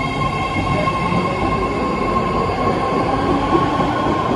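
BART Fleet of the Future electric train pulling out of the station, its rumble building as the cars roll past. A steady high whine runs over it and fades about halfway through.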